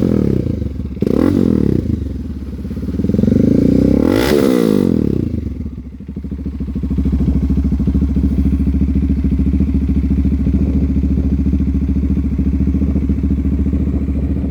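Bajaj Dominar 400 single-cylinder engine, carburettor-fed and running through an open exhaust pipe, is blipped twice, then given one longer rev about four seconds in. It then drops back to a steady idle for the rest.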